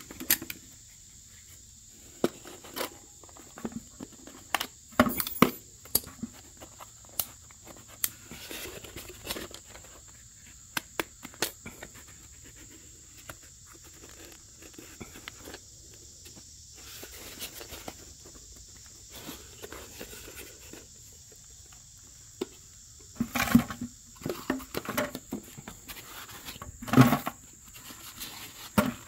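Scattered light clicks and knocks, with louder clusters near the middle and toward the end, over a steady high-pitched drone like insects.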